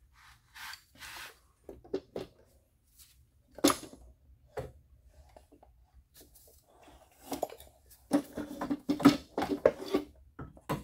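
Metal parts clinking, knocking and rubbing as a Ferrari F355 rear CV axle is worked loose and pulled out of the hub carrier by hand. Two short rubbing sounds come near the start, a sharp knock a little under four seconds in, and a quick run of clanks about eight seconds in.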